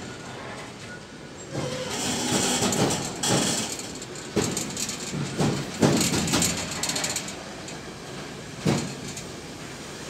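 Freight train of rail tank wagons rolling past close by, a steady wheel-on-rail rumble with a hissing rush of wheel noise about two seconds in. Irregular heavy thuds come from the wheels several times in the second half.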